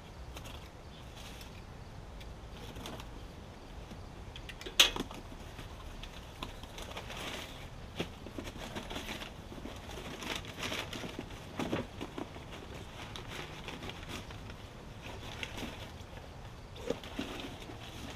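Cardboard boxes being opened and brown packing paper pulled out and crumpled: irregular rustling and crinkling, with one sharp snap about five seconds in.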